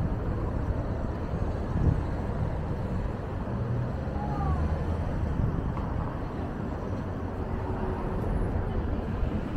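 Street traffic: car engines running and passing, a steady low rumble with an engine hum that swells a little midway.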